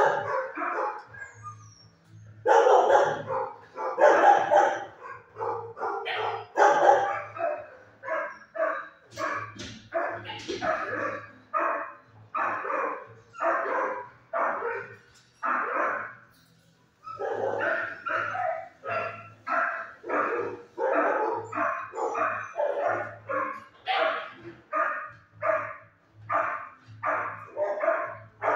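Dog barking repeatedly in a shelter kennel, a steady run of barks about one or two a second with a short pause about halfway through.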